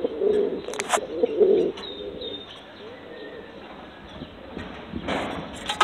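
Domestic pigeons cooing in a loft: a run of low coos in the first two seconds, then quieter. A sharp knock comes about a second in, and a short rustling noise comes near the end.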